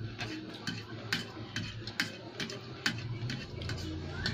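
Fork and knife clicking and scraping against a plate as pancit canton noodles are cut up, a string of irregular sharp clicks, about two or three a second.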